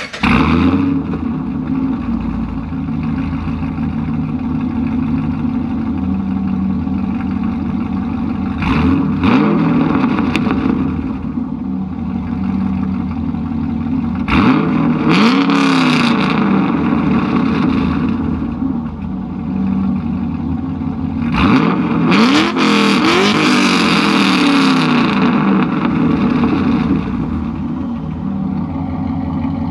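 2009 Holden Commodore with Kooks headers, a loud mid pipe and aftermarket mufflers, idling loudly through its exhaust. It is revved three times, about a third of the way in, near the middle and about three-quarters in, each time climbing and then dropping back to idle.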